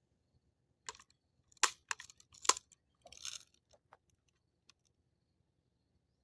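A run of sharp mechanical clicks and clacks, with a short rasp in the middle, from a multi-pump BB rifle being handled and readied to shoot. The clicks cluster in the first four seconds and then stop.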